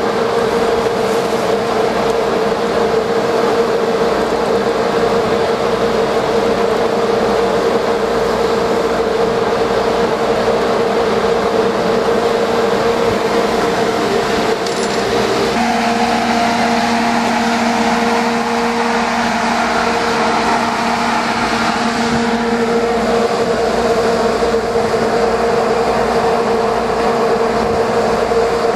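Steady drone of a sportfishing boat's engine running at sea, with wind and water noise on the microphone. The pitch of the drone changes about halfway through, dropping to a lower note for several seconds before returning.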